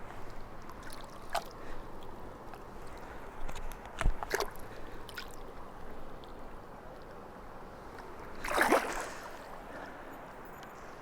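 River water flowing steadily, with a sharp knock and a few clicks near the middle and a brief splash about three-quarters of the way through.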